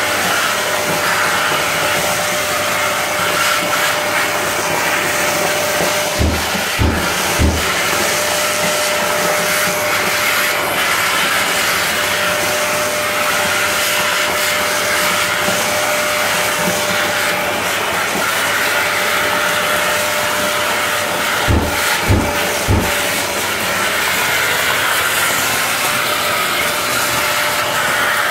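Bosch GAS 35 L AFC wet/dry dust extractor running steadily, a steady motor whine over the rush of suction as its floor tube picks up tile debris and dust from concrete. Twice, about fifteen seconds apart, a quick run of three low thumps: the automatic filter-cleaning cycle knocking the filter.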